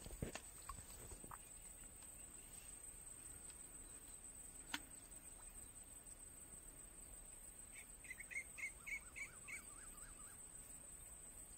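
Quiet outdoor ambience with a steady high-pitched insect drone; about eight seconds in a bird calls a quick run of about six notes. A few faint clicks near the start and one sharp click about five seconds in.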